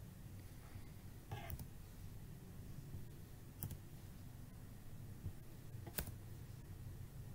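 A few sharp, isolated clicks from a computer keyboard and mouse, a second or two apart, as single characters of code are corrected, over a low steady hum.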